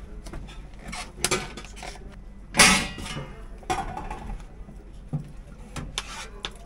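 Clatter of food-truck kitchen work: utensils, lids and takeaway containers knocked against stainless steel in scattered clicks and knocks, with one louder clatter about two and a half seconds in.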